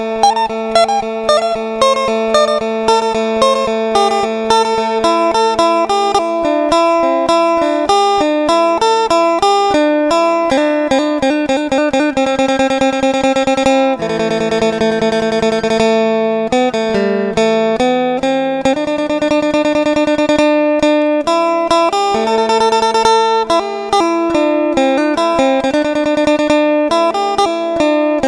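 Isan folk instrumental music: a phin (plucked Thai lute) picking a fast, rapidly repeated melody over a steady drone.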